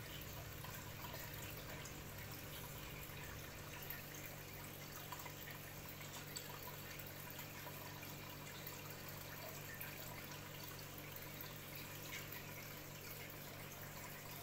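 Aquarium filter running: a faint, steady trickle of water over a low steady hum, with a few small ticks.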